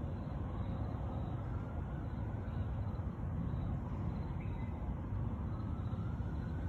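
Steady low rumble of distant traffic and city background noise, with faint slow rising and falling tones drifting over it.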